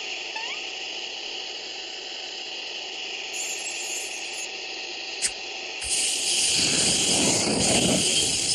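Cartoon vacuum cleaner sound effect: a steady hissing whir, with a single click a little past five seconds, then a louder rushing suction noise from about six seconds in.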